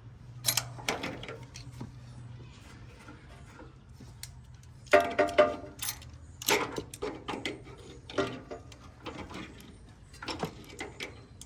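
Metal clinks and clanks of a hand tool gripping and turning the round oil drain cap on a Kohler K181 engine to loosen it, with a cluster of sharper metallic knocks about five to six seconds in.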